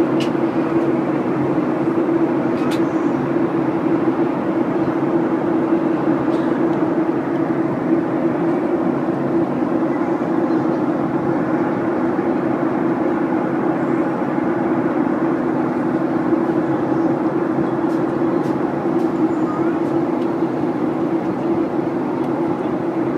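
Steady drone of a SpiceJet Boeing 737's turbofan engines and rushing air, heard inside the cabin by the window over the wing, with a strong low hum holding level throughout the climb after takeoff.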